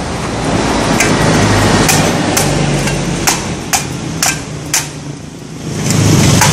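Machete hacking open a green coconut: about eight sharp chops, coming about twice a second in the middle, over a steady low rumble.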